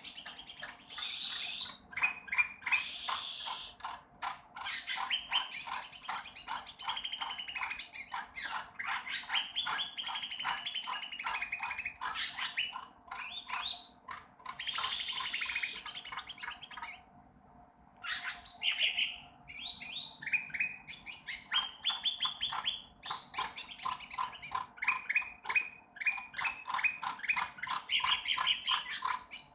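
A juvenile cucak ranting bird practising its song: long runs of rapid, short chirping notes mixed with harsh, squawky calls, breaking off briefly about 17 seconds in before starting again.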